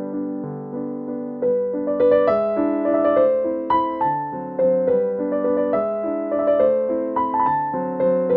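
Background piano music: a gentle melody with notes struck every half second or so, getting a little livelier about two seconds in.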